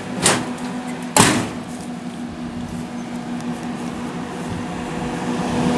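Roof vent fans on an aluminium dog box running with a steady hum, blowing air down into the dog compartments. Two sharp knocks cut in, one about a quarter second in and a louder one just over a second in.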